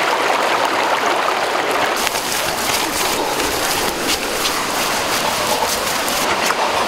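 Steady rush of fast-flowing stream water. From about two seconds in, scattered sharp crackles join it.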